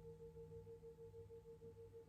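Singing bowl ringing faintly: one steady, sustained tone that wavers evenly about six times a second.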